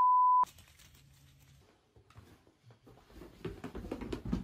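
A loud, steady single-pitch censor bleep that cuts off about half a second in. After a few faint taps, a black dog bumps and slides down carpeted stairs from about three seconds on: a run of soft thumps and rustling patter.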